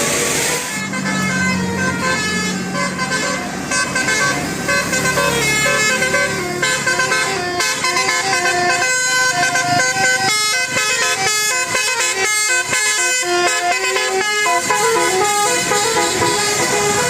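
Indonesian 'telolet basuri' musical bus horn playing a quick tune of short stepped notes. The notes come thicker from about halfway through.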